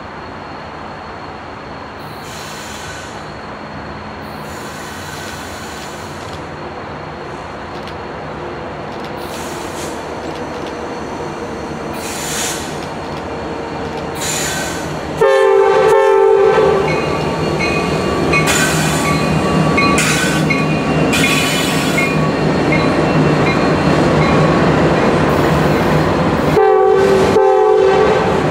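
Norfolk Southern autorack freight led by an EMD SD70M and a GE Dash 9-44CW diesel locomotive approaching and passing, its rumble growing louder. The lead locomotive's horn sounds in short blasts about halfway through and again near the end, and the wheels squeal as the locomotives and autoracks roll by on the curve.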